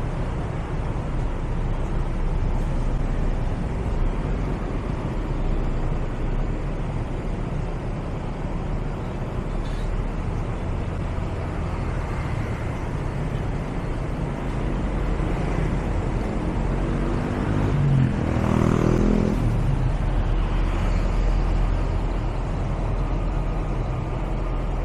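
City road traffic: a steady low rumble of passing motorbikes and cars. About eighteen seconds in, one vehicle's engine note rises and then falls as it goes by.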